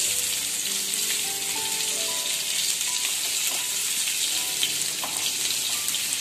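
Stuffed small brinjals sizzling in hot oil in a kadhai, turned over with a wooden spatula, with a few light taps of the spatula against the pan.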